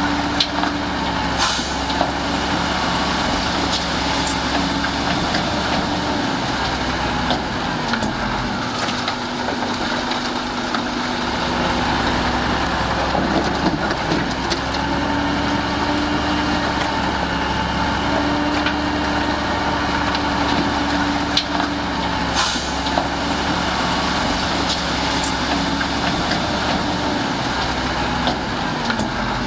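Heavy diesel engines of earth-moving machinery running steadily, the engine note shifting a few times, with two short hisses, one about a second and a half in and one about three quarters of the way through.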